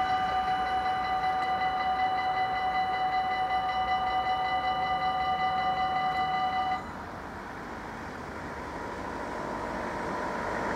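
Dutch level-crossing warning bell ringing in quick, even pulses, then stopping abruptly about seven seconds in as the barriers lift. After that a road vehicle's rushing noise builds steadily.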